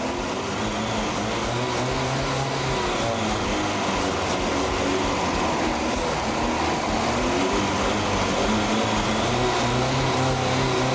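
Classic Lada inline-four engine running on a makeshift single-injector fuel setup fitted in place of its carburettor, its speed wavering slowly up and down. The injector is pouring in a lot of gasoline, and the mixture then leans out.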